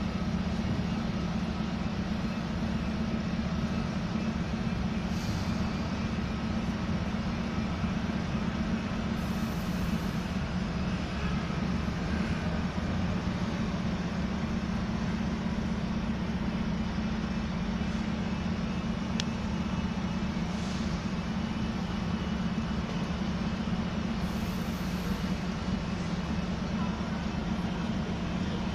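Steady low drone of an idling engine, unchanging throughout.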